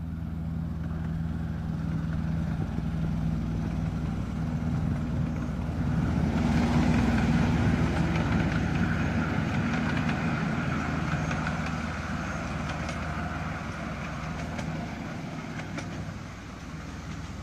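Engine of a 7¼-inch gauge miniature Class 47 locomotive running steadily, with wheels rolling on rail as it passes hauling a train of passenger cars; loudest about halfway through, then fading as it moves away, with a few clicks near the end.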